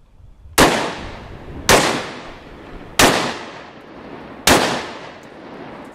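Four rifle shots from a Ruger American Predator bolt-action rifle chambered in .223, spaced about a second to a second and a half apart. Each shot has a long fading echo.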